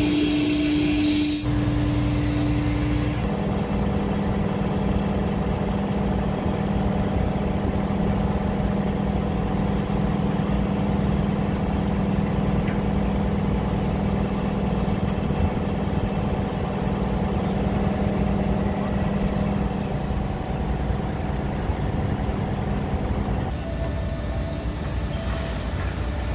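Steady machinery drone with a constant low hum on a tanker's deck, from the ship's machinery and the working deck crane. The hum changes abruptly about 3 s in and again near the end.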